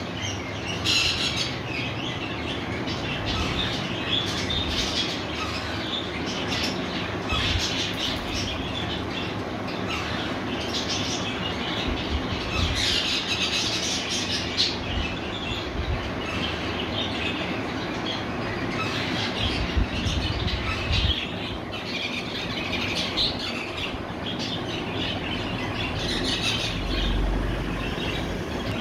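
Young Alexandrine parakeets giving repeated short squawks and chattering calls over a steady background noise.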